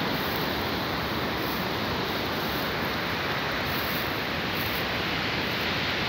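A steady rushing hiss that stays even throughout, with no distinct events.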